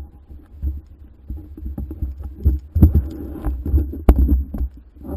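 KTM 690's single-cylinder engine running with a low, uneven thump, mixed with irregular knocks and bumps.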